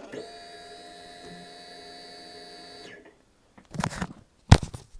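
Suzuki GSX-R750 K5 fuel pump whirring at a steady pitch for about three seconds with the ignition switched on, then cutting out. The engine neither cranks nor fires: the bike won't start. A few knocks and handling noises follow, the loudest a sharp knock near the end.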